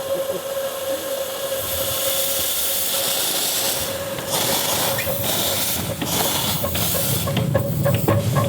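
A 7¼ inch gauge miniature steam locomotive hissing steam, with a steady high tone running under it. Near the end a quick run of short sharp beats starts.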